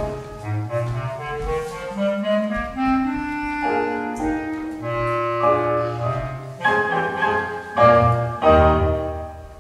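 Instrumental children's dance music: a melody over a low bass line that climbs note by note through the middle, then a few loud held chords as the piece comes to its end.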